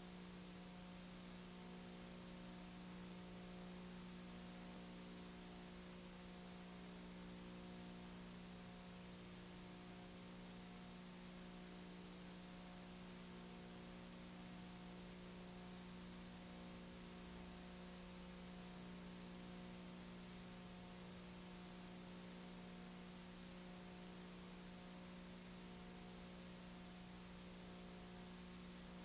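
Near silence: a steady low electrical hum with faint hiss, with no game sound or commentary.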